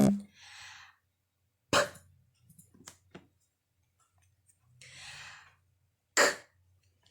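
A voice sounding out the unvoiced consonants P and Q as letter sounds: twice a short breathy hiss followed by a sharp puff of a plosive, the "p" about two seconds in and the "k" about six seconds in.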